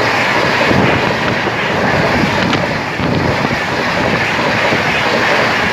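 Express train passing close by: a steady, loud rush of wheels on rails and moving coaches, with wind buffeting the microphone.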